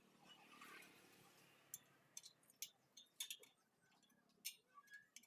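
Faint, irregular light clicks and taps of metal tools on a spoked motorcycle wheel, with a soft hiss in the first second and a half.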